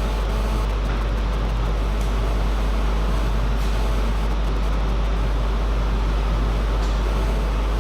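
A steady low hum with an even noise over it, with a few faint clicks.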